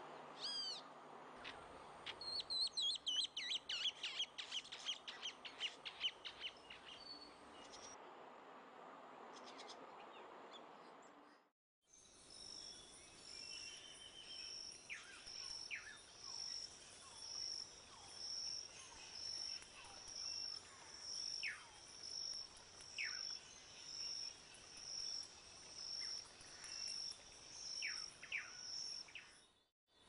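Ringed kingfisher giving its rattling call, a fast run of harsh notes lasting a few seconds. After a short break, a high note repeats evenly about once a second over a forest background, with a few short downward-sliding calls.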